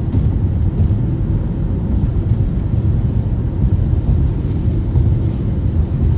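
Steady low rumble of a moving vehicle, even throughout with no distinct knocks or changes.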